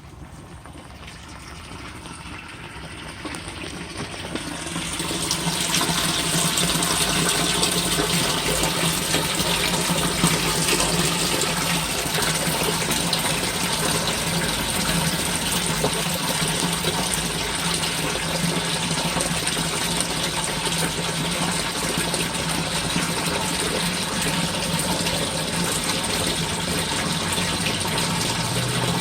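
Rainwater gushing steadily into a French drain's sump pit. It grows louder over the first five seconds or so, then holds steady.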